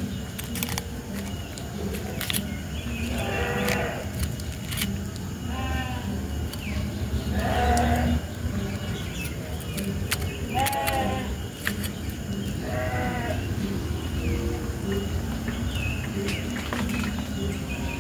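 An animal giving short, wavering, bleat-like cries, one every two to three seconds, over a steady low rumble, with a few sharp clicks scattered between the calls.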